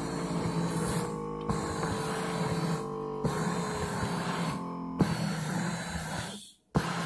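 Electric foot massager's motor and rollers running, heard from inside the machine: a steady whine of stacked tones that breaks and shifts in pitch about every one and a half to two seconds. Near the end it cuts out briefly and then starts again.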